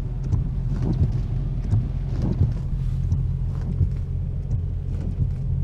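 A car engine idling with a steady low hum, with a few faint light ticks scattered through it.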